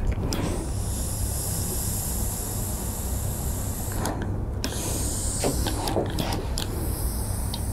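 Steam iron hissing as it presses down to fuse fusible strips onto fabric. The steam stops briefly about four seconds in and then resumes, over a steady low hum.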